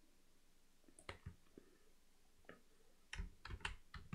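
Faint clicks of a computer mouse and keyboard keys: a few single clicks, then a quicker run of clicks and key presses near the end.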